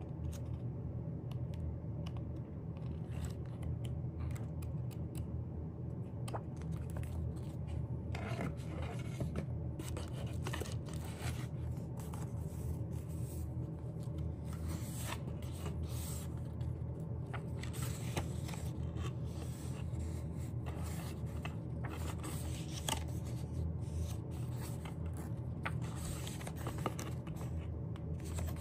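Paper and cardboard album packaging being handled by hand: irregular scraping, rustling and light taps, busier from about a third of the way in, over a steady low hum.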